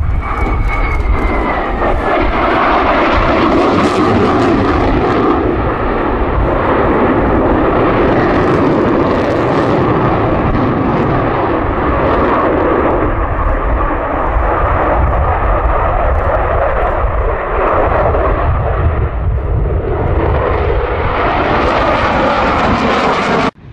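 Loud, continuous roar of a twin-engine Sukhoi Flanker-type fighter jet flying past, swelling and easing as it manoeuvres, with a high engine whine falling in pitch over the first two seconds. The sound cuts off abruptly at the very end.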